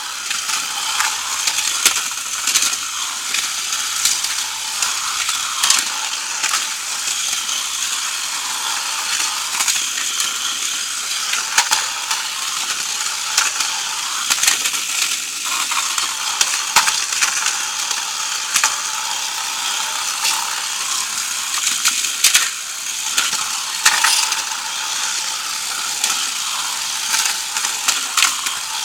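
Two Crush Gear toy battle cars, Arkcavalier and Garuda Phoenix, running: their small electric motors and gearboxes whir with a steady high buzz. Frequent sharp clicks and knocks come through it as the plastic cars clash against each other and the arena wall.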